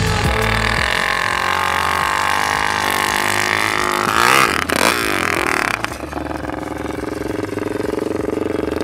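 Honda CRF450 single-cylinder four-stroke engine in a Power Wheels Barbie Jeep, revving under throttle and rising in pitch about three to four seconds in, then dropping to a lower, steadier running note from about six seconds.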